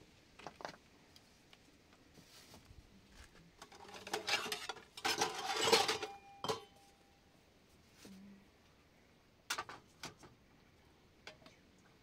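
Scattered knocks and clatter of objects being handled, densest about four to six seconds in, with a short ringing tone just after and a few more knocks later.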